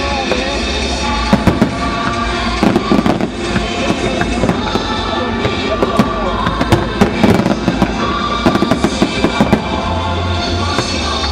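Aerial fireworks going off in many sharp bangs and crackles in quick, irregular succession, over a music soundtrack.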